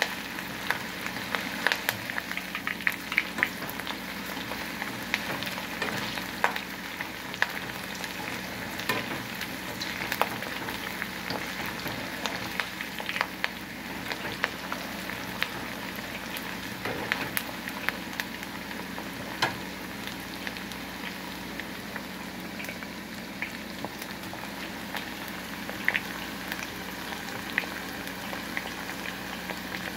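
Batter-coated chicken pieces deep-frying in hot oil: a steady bubbling sizzle with frequent sharp crackles and pops. A steady low hum runs underneath.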